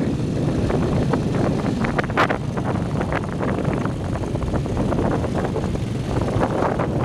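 Motorbike riding along a rough dirt road: the engine running under steady wind buffeting on the microphone, with frequent small knocks and rattles, the loudest about two seconds in.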